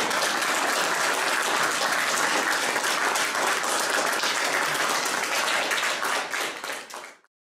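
Audience applauding, a steady patter of many hands clapping that fades out and stops about seven seconds in.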